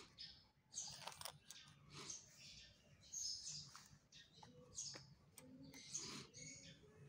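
Faint chirping of birds in the background, mixed with light clicks and scrapes of old 100-rupiah coins being slid and set down on a sheet.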